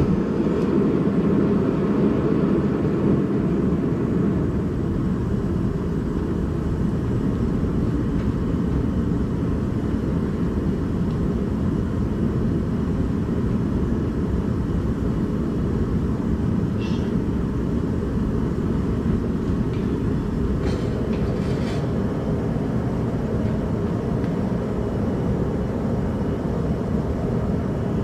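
Propane forge lighting with a sudden whoosh of flame, then its burner running with a steady, loud, low rushing noise.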